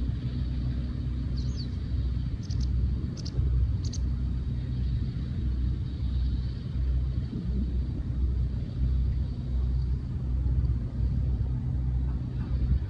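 Low, steady engine rumble with a faint hum, swelling and dipping unevenly. A few short high chirps sound in the first few seconds.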